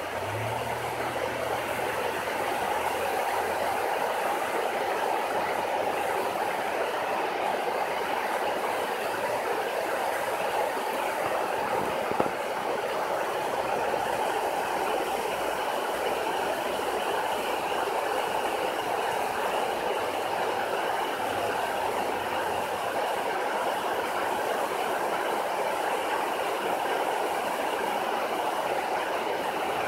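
Water pouring over a low dam's spillway and churning through the rapids below, a steady rushing noise that does not change.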